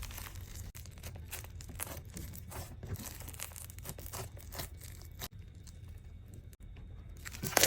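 Faint crinkling and crackling handling noises with many small irregular clicks, rising to a louder rustle near the end.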